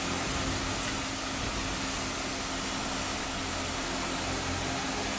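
Mushrooms sautéing in a skillet on an induction hob, a steady, even sizzle, under a faint low hum.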